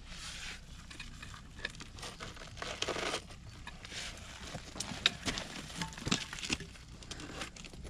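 Scattered clicks and knocks of a hand tool on rock, with loose clay and gravel crumbling and trickling, from hand-digging out a quartz crystal pocket. A longer scraping rush comes a little under three seconds in, and the sharpest knock about five seconds in.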